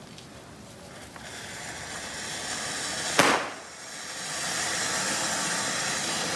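Burning Diwali fireworks hissing as they spray sparks, with one sharp cracker bang about three seconds in, the loudest sound; the hiss then picks up again and holds steady.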